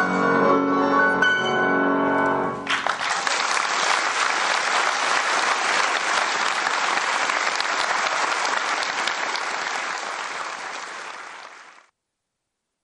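Solo piano playing that stops about two and a half seconds in, met at once by audience applause. The applause runs steadily and then fades out shortly before the end.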